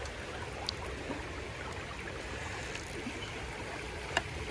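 Creek water running steadily over stones, with a faint click early and a sharper tap a little after four seconds in.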